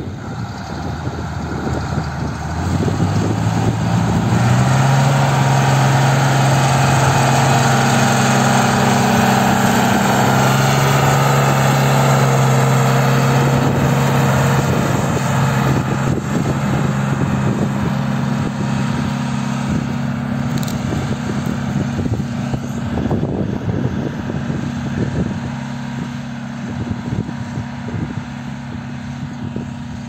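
John Deere 3140 tractor's six-cylinder diesel engine running under load while pulling a three-furrow plough, a steady drone. It grows louder over the first few seconds as the tractor comes close and eases off slightly in the second half as it moves away.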